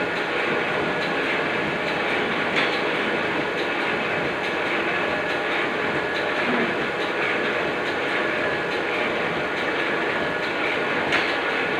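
Oliver offset printing press running at normal production speed, a steady dense mechanical clatter, with a sharper clack about two and a half seconds in and another near the end.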